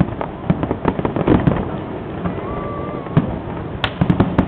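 Fireworks display going off: a dense, irregular run of crackling pops and bangs, with a sharper, louder crack near the end followed by a thicker cluster of bangs.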